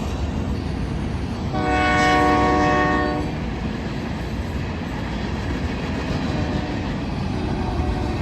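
Freight train led by a GE C44ACM locomotive passing with a steady low rumble. About a second and a half in, the locomotive horn sounds one short chord blast lasting under two seconds.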